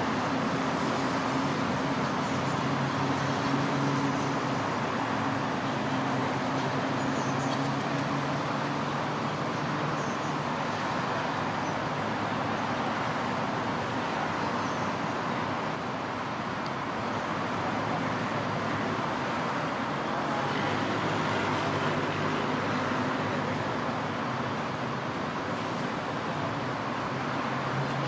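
Steady road traffic noise: a continuous hum of passing vehicles, with low engine tones that drift up and down.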